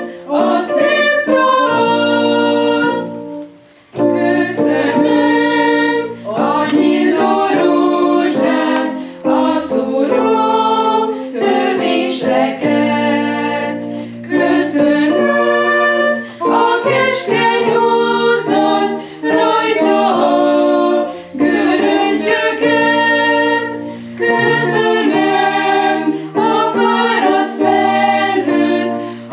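A women's vocal group sings a hymn in several parts, accompanied by a keyboard holding sustained chords. The singing comes in phrases a few seconds long, with a short pause about four seconds in.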